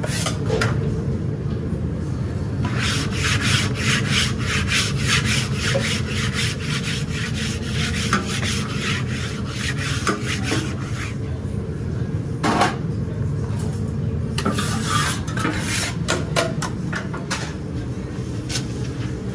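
A steel flat-top grill being scraped and scrubbed: rapid back-and-forth rasping strokes, several a second, in two long runs with a pause between them, over a steady low hum.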